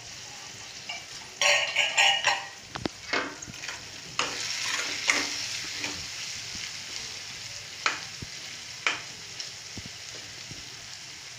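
Vegetables and paneer frying in oil in a kadai, sizzling, while a metal spatula stirs them and scrapes against the pan in short strokes. The loudest scraping comes about one and a half to two and a half seconds in.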